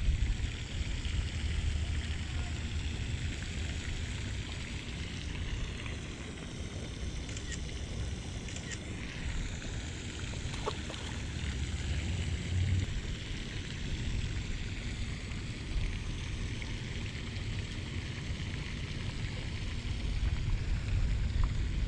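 Wind rumbling and buffeting on the microphone over a steady outdoor hiss, with a faint tick or two.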